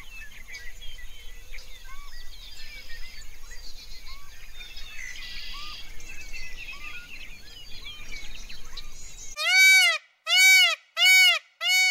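Many small birds chirping, with short repeated notes over a faint background hiss. About nine seconds in, the sound cuts abruptly to four loud, evenly spaced animal calls, each about half a second long, with silence between them.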